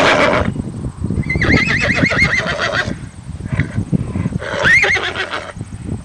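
A horse whinnying: one whinny trailing off at the start, a long quavering whinny about a second in, and a shorter one near the end.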